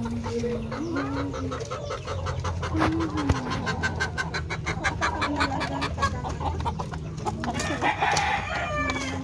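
Penned roosters clucking, with a fast run of short notes in the middle.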